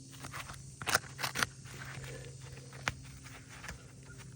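A few crunches and scrapes on asphalt roof shingles, three bunched about a second in and another near three seconds, over a steady low hum.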